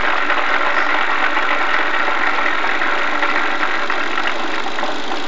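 Film projector running: a steady mechanical whir and clatter, with no band music heard.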